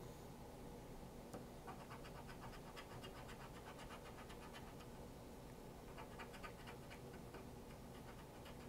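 Faint, rapid scraping strokes of a scratch-off lottery ticket's latex coating being rubbed off, clearer in the second half.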